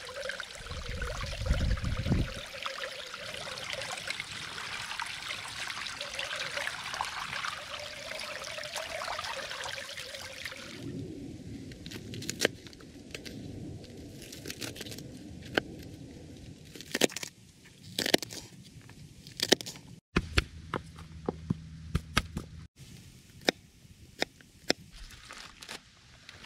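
Water running steadily for about the first eleven seconds, with a brief low rumble about two seconds in; then the water sound stops and scattered sharp clicks and crackles follow.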